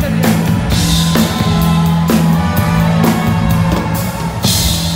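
Live band playing a pop ballad, with strong drum hits about once a second over a held bass note and a cymbal crash near the end.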